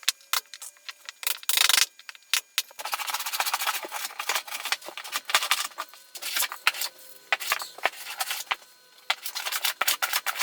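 Wood being worked by hand at a workbench: a run of sharp taps and knocks, then from about three seconds in a stretch of rough scraping and rubbing strokes on wood.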